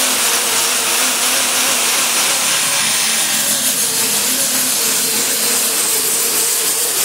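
Air-powered orbital sander running steadily at full speed, its pad grinding layers of paint and primer off a car's steel front panel. It makes a loud, even whirring hiss with no let-up.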